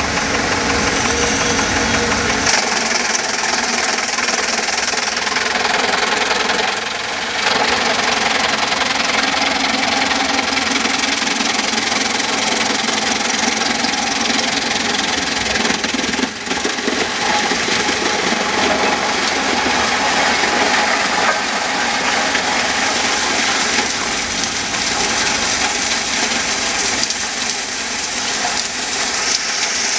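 Engine-driven machinery running steadily and loudly. A deep low rumble cuts out about two seconds in, leaving the harsher, higher machine noise.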